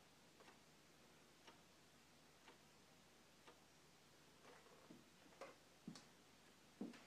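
Faint ticking of a wall clock, one tick a second, in a quiet room. From about four and a half seconds in, a few louder irregular knocks and footsteps join it.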